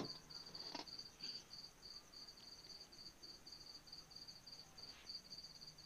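Faint cricket chirping: a steady run of rapid high-pitched pulses, over a faint low hum, with a soft click about a second in and another near the end.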